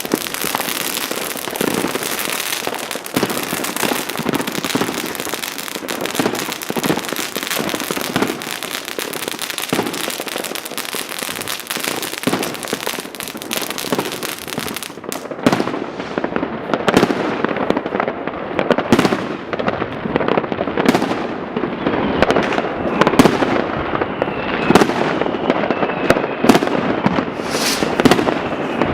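Many fireworks going off at once: a dense, continuous crackling and popping for the first half, then, after an abrupt change about halfway through, separate bangs and booms, each with a trailing echo, and a faint falling whistle near the end.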